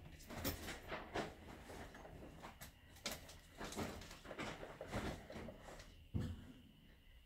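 A beagle and a tabby cat tussling on a fabric shopping trolley: irregular rustles, taps and knocks of paws and bodies against the bag and its frame, with a louder low thump about six seconds in.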